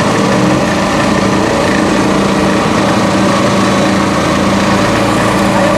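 A small engine running steadily at a constant speed, with an even hum and noise throughout.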